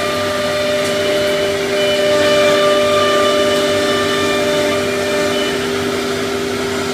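CNC router spindle whining steadily as it cuts a laminated wood panel, with the dust extraction hissing underneath; the whine swells slightly around the middle and a higher tone joins for a few seconds.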